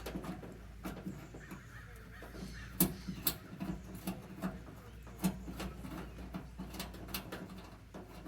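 Irregular sharp clicks and taps of hand tools and small metal parts being handled, over a low steady hum.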